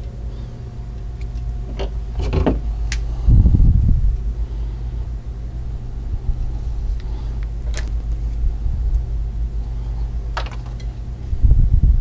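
Steady low hum with scattered sharp clicks and two dull thumps, the sounds of a wire stripper working on alarm cable and being handled.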